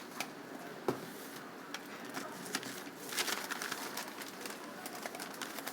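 Scattered small clicks and brief rustles of medicine packs being handled, busiest about three seconds in.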